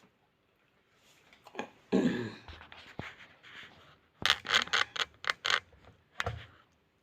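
Eating sounds at the table: a scrape about two seconds in, then a quick run of about six sharp clicks and scrapes, and one more near the end.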